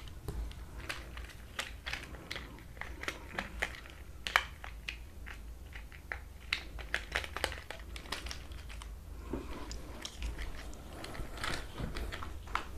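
Scattered small clicks, taps and crinkles of plastic toy parts and packaging being handled.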